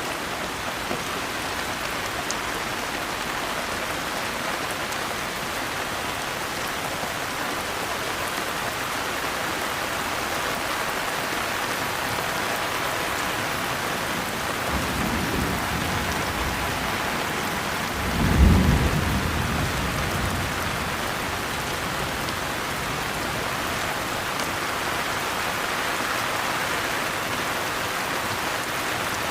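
Steady rain falling, with a faint low roll of thunder about halfway through and a louder rumble of thunder a few seconds later that fades over about two seconds.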